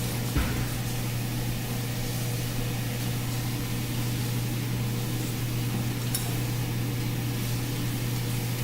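Sliced steak sizzling on a griddle: a steady hiss over a constant low hum, with a single knock about half a second in.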